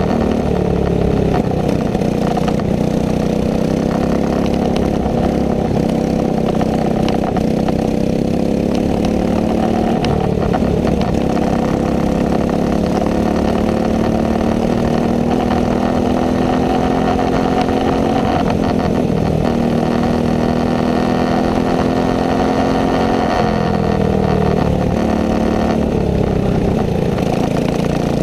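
Racing go-kart engine at high revs, its pitch dropping as it slows for corners and climbing again on the straights, several times over.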